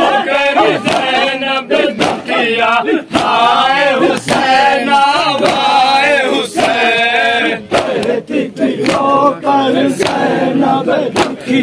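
Crowd of men chanting a Muharram nauha together, with sharp slaps of matam, open hands striking chests, about once or twice a second.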